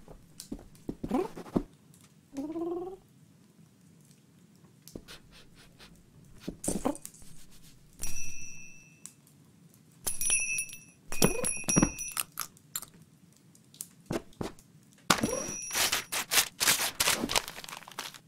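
Cartoon sound effects of a cat at a Christmas tree. About two seconds in there is a short rising cat chirp. Light taps and bell-like ringing dings follow as it bats a hanging ornament, and near the end comes a loud jumble of knocks and crunching as it tumbles into the presents and baubles.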